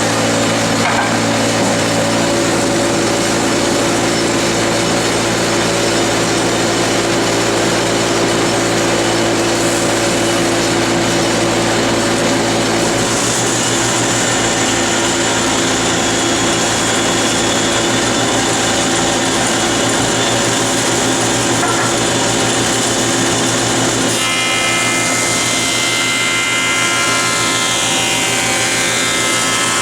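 Grizzly 8-inch jointer running with a dust collector, the cutterhead planing a rough hard maple board in a single pass; a steady machine drone. About two thirds of the way through the sound changes and a falling whine appears.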